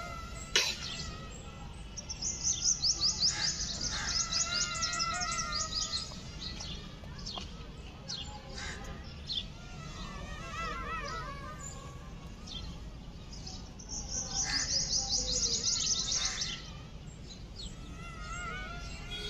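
Birds chirping and calling: a rapid high trill of chirps about two seconds in and again near the end, with warbling whistled calls in between.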